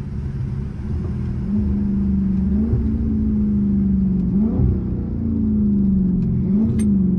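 Dodge Charger Scat Pack's 392 (6.4-litre) HEMI V8 heard from inside the cabin as the car slows down. The engine note sinks in pitch, then steps briefly back up three times as the eight-speed automatic shifts down.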